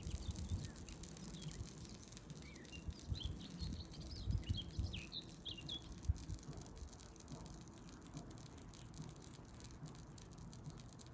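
Oven-roasted pumpkin wedges sizzling and crackling in a hot glass baking dish fresh out of the oven, a steady fine crackle with a few soft knocks in the first half. Faint high chirps come through between about two and five seconds in.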